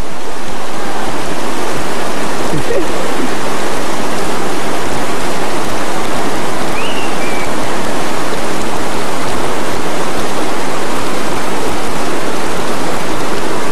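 Loud, steady rush of fast-flowing river water close to the microphone.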